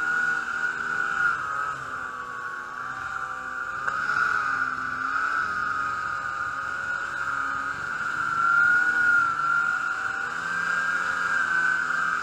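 Snowmobile engine running under way on a trail, with a steady high whine whose pitch wavers up and down as the throttle changes.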